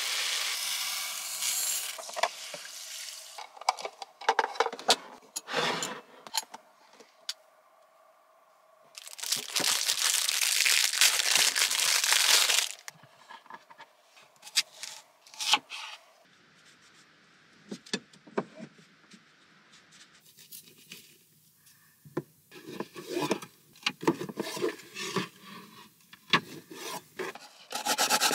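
Knocks and short scrapes as a daikon radish is handled and peeled with a knife on a wooden board, with a few seconds of loud steady rasping in the middle. Near the end comes a steady rasping as the daikon is rubbed back and forth on a plastic grater.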